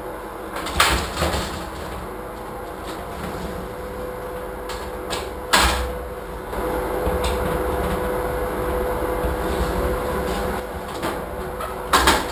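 Sliding tub-and-shower door being handled and rolled in its metal track. Sharp clunks of the frame come about a second in and again about five and a half seconds in, then a steady rolling rumble, and a double clunk near the end.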